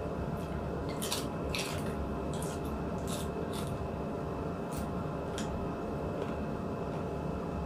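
Wet mouth sounds of someone eating: short chewing smacks, about eight of them spread over several seconds, over a steady background hum.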